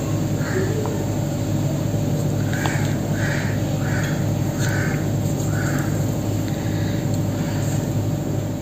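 A crow cawing repeatedly, with a quick run of about six caws around the middle, over a steady low hum.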